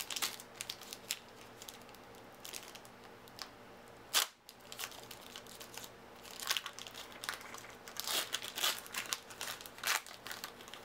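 Trading card booster pack wrapper being torn open and crinkled by hand: a run of short, irregular crackles, with one louder sharp sound about four seconds in.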